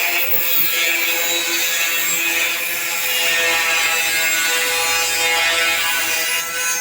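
A power tool running steadily under load on a metal-shed job: a continuous whine of several held tones over a harsh, hissing grind.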